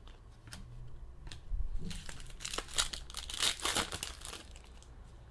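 Trading-card packaging crinkling and tearing, loudest in a dense run from about two to four seconds in, after a couple of light ticks.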